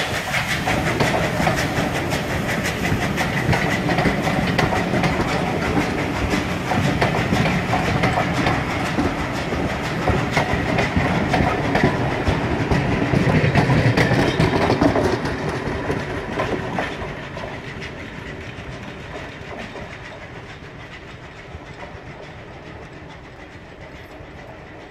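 Passenger coaches of a steam-hauled train rolling past close by, their wheels clicking rapidly over the rail joints, then fading steadily as the train draws away from about two-thirds of the way in.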